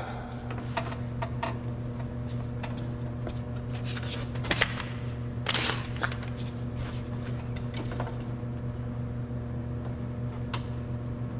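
Scattered small plastic clicks and knocks of a wiring connector being worked loose and unplugged inside a car door, the loudest about four and a half and five and a half seconds in, over a steady low hum.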